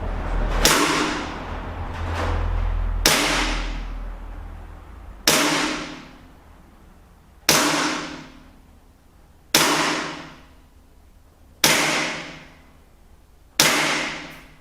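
WE XDM-40 gas blowback airsoft pistol firing single shots, seven sharp cracks about two seconds apart, each followed by a ringing echo that dies away.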